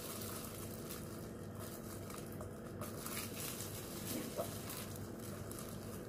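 Faint handling noise of plastic-gloved hands working a raw whole chicken, over a steady background hiss, with a brief small tap about four and a half seconds in.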